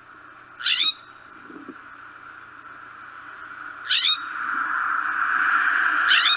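California scrub jay giving three short, harsh, rasping calls, each sweeping upward and spaced about three seconds apart, over a steady background hiss that grows louder in the second half.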